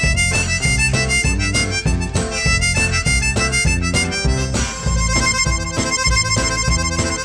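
Blues instrumental led by harmonica, over guitar, bass guitar and percussion keeping a steady beat.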